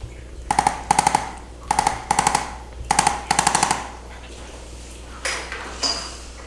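A handheld electric percussion instrument of the kind used for chiropractic adjusting fires six short bursts of rapid taps, in three pairs about a second apart, giving a brief stimulus to the body.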